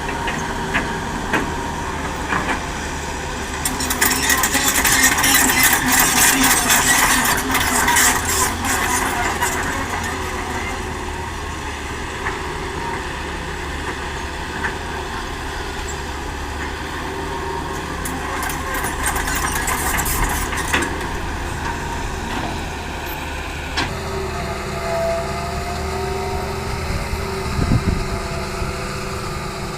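Diesel engines of an excavator and dump truck running steadily, with bursts of loud clattering about four to nine seconds in and again around eighteen to twenty seconds, typical of rocky soil being dumped into a steel truck bed.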